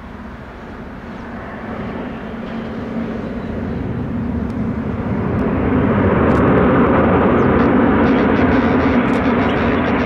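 Boeing 737-800's CFM56 jet engines rumbling as the airliner rolls out just after landing, building steadily to a peak about six seconds in and easing slightly near the end.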